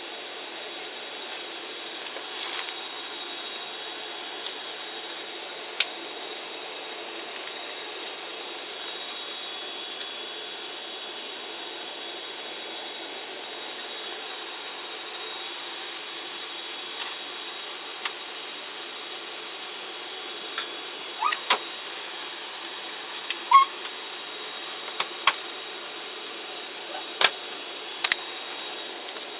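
Steady hum of an ATR turboprop airliner's cabin on the ground before departure, with a thin high whine over it. Scattered small clicks and knocks come in, more of them near the end.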